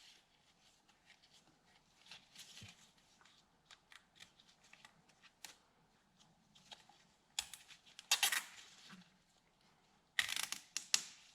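Nylon zip ties being pulled tight through their locks, short ratcheting zips about eight seconds in and again near ten seconds, after faint handling rustles.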